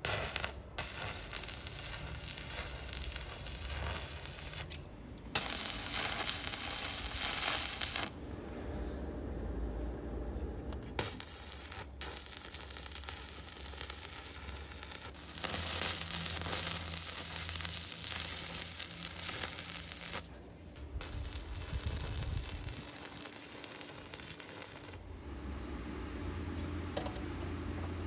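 Electric arc welding on steel plate: the arc crackles and sizzles in several runs of a few seconds each, with short breaks between them.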